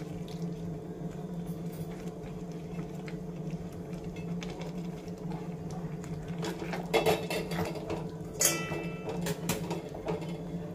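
Silicone spatula stirring mixed vegetables into thick gravy in a non-stick frying pan, with soft scrapes and clicks against the pan and a brief squeak about eight and a half seconds in, over a steady low hum.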